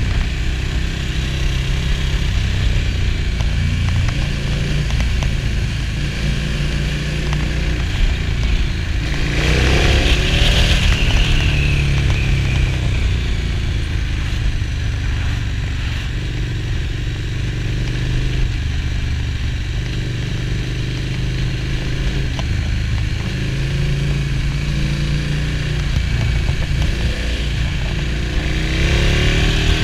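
Motorcycle engine and wind rush heard from onboard while riding. It runs fairly steadily, and the revs rise as the bike accelerates about nine seconds in and again near the end.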